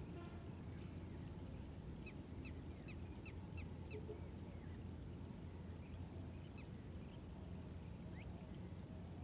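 Birds calling over water: a quick run of short, high chirps about two to four seconds in, with a few scattered calls later, over a steady low background rumble.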